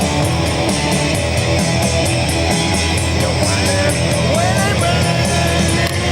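Loud rock music with electric guitar over a steady drum beat, with a few short sliding guitar notes a little past the middle.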